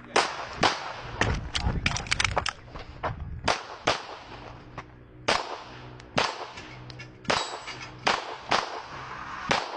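Handgun shots fired during a timed practical shooting stage: about twenty shots in quick runs, broken by short pauses.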